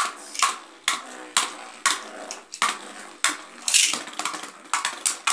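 Two Beyblade Burst tops, Victory Valtryek and Xeno Xcalius, spinning and battling in a plastic basin. They clack sharply and unevenly, about twice a second, as they knock against each other and the basin.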